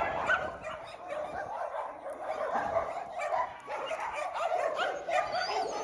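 Several dogs barking and yipping off and on, short calls overlapping one another.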